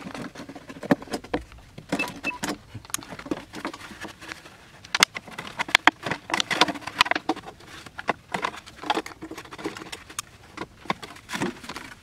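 Large thin plastic bottle being cut with a utility knife and handled, its neck piece pushed into the body: irregular sharp crackles and clicks of the plastic, thickest in the middle of the stretch.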